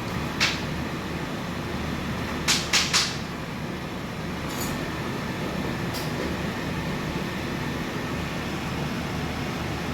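Steady low mechanical hum, with a sharp click about half a second in and three quick clinks between two and a half and three seconds in.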